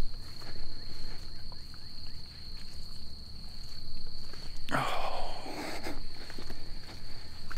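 Footsteps of a person walking on a muddy dirt trail, over a steady high-pitched insect drone. A brief louder noise comes about five seconds in.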